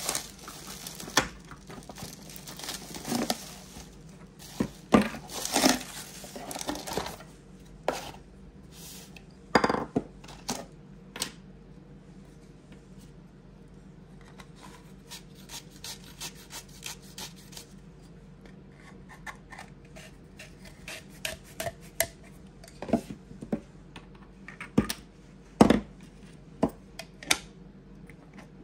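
Unpacking and assembling a hammer-shaped dice tower: bubble wrap crinkling and rustling as the parts are pulled from the box during the first several seconds, then hard parts clicking and knocking together as a ring, handle and end cap are fitted and screwed on. A low steady hum runs underneath.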